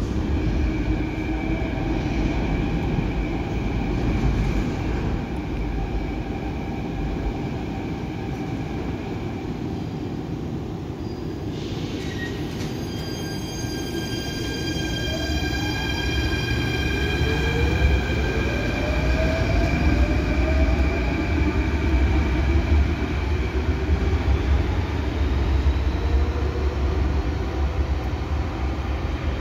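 Athens metro electric train pulling out of an underground station: a low rumble of the train and wheels on rail, a short hiss about twelve seconds in, then a whine of several steady high tones with lower tones rising in pitch as the traction motors take up the load and the train accelerates away.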